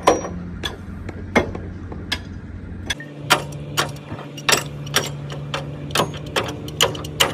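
Sharp knocks, one or two a second and unevenly spaced, over a steady machine hum; the deep rumble beneath the hum drops away about three seconds in.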